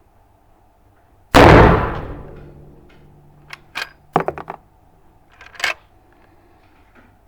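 Uberti 1873 lever-action rifle firing one loud shot about a second in, the report ringing away over about a second. It is followed by a quick run of metallic clicks and a last click a second later, the lever being worked to eject the case and chamber the next round.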